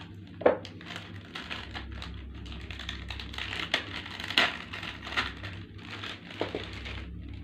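A crinkly plastic snack pouch being opened and rummaged through, its wrappers and small plastic contents crackling and rustling in an irregular run, with a sharper snap about half a second in and another near the middle.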